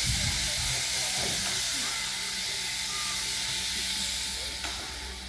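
Prussian P8 steam locomotive venting steam in a steady, loud hiss from its open cylinder drain cocks; the hiss eases off near the end.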